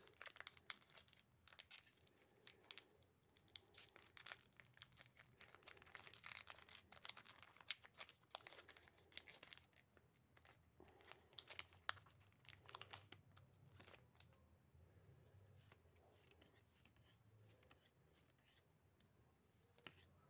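Pokémon booster pack's foil wrapper being handled and torn open by hand, crinkling and crackling in quick clusters of small clicks. It quietens over the last several seconds.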